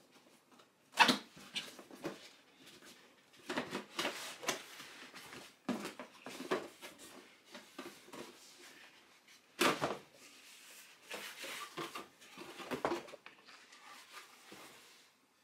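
Cardboard box being opened by hand: the lid flap and cardboard sides scraping and rustling in irregular bursts, with a sharp knock about a second in and another about ten seconds in.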